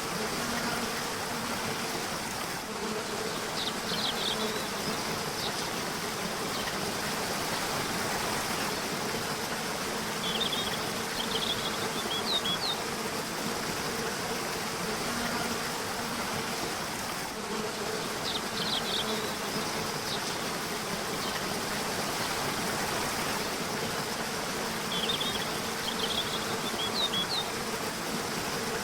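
River water rushing steadily, with small birds giving short clusters of high chirps that recur every several seconds, and a faint low hum that comes and goes.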